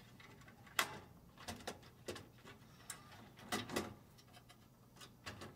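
Faint scattered clicks and knocks of a Fadal servo amplifier board being slid into its slot in the CNC control cabinet, the sharpest knock just under a second in.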